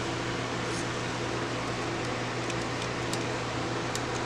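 Steady background hum and hiss: room tone, with no clicks, knocks or tool sounds.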